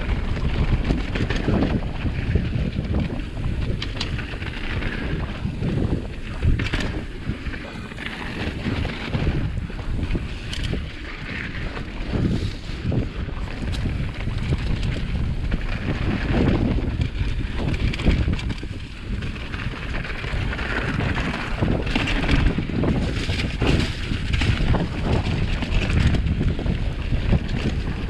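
Scott Spark 950 full-suspension mountain bike riding singletrack: heavy wind buffeting the microphone over the rumble of tyres rolling on dirt and dry leaves, with scattered sharp knocks and clicks from the bike over bumps.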